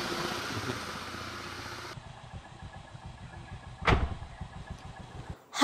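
A motorcycle engine running close by, fading away over the first couple of seconds. Then quieter background with a single sharp knock about four seconds in.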